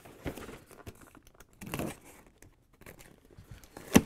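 Cardboard shipping case being handled and opened by hand: irregular rustling and scraping of cardboard and packing tape, with one sharp knock near the end.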